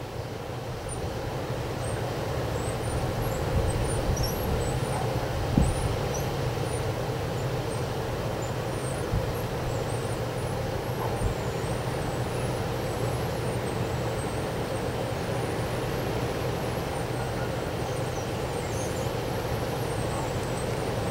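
Wind blowing steadily at night, a continuous rushing noise that swells over the first few seconds, with a few low thumps from gusts.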